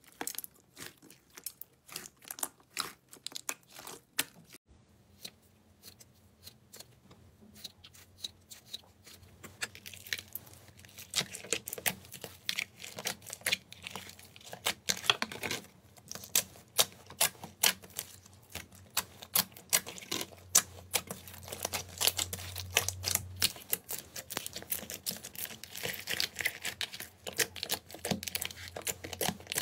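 Hands kneading, squeezing and pressing slime, making a dense run of small sticky clicks and crackling pops, thicker and louder in the second half. About five seconds in, a fluffy slime gives way to a thick, glossy slime with hard pieces mixed in.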